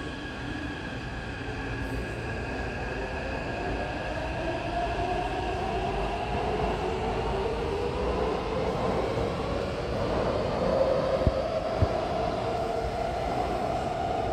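Taipei Metro train pulling out of an underground station. Its motor whine rises slowly in pitch as it gathers speed over a steady rumble of wheels on rail, with two short sharp clicks about eleven seconds in.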